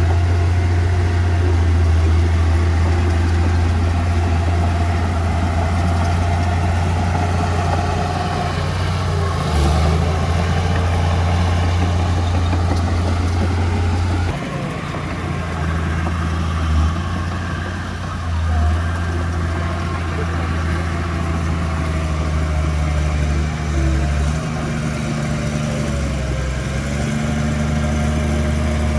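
Heavy earthmoving machinery running: a diesel engine with a steady deep rumble that shifts in load about halfway through.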